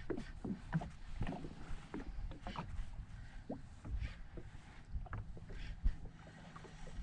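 Water lapping and slapping against the hull of a drifting jet ski, heard as irregular small splashes and knocks over a low rumble.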